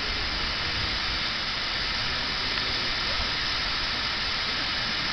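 Steam hissing steadily from the LMS Stanier Black Five steam locomotive No. 44871, an even hiss that holds without a break.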